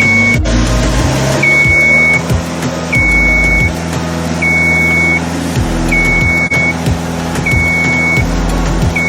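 Aerial lift's motion alarm beeping, one high steady beep about every second and a half starting about a second and a half in, over the lift's engine running steadily: the lift is being moved.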